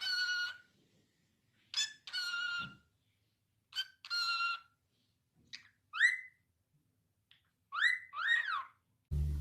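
Pet parrot calling: three rasping squawks about two seconds apart, each led by a short chirp, then a run of whistled notes that rise, and near the end rise and fall.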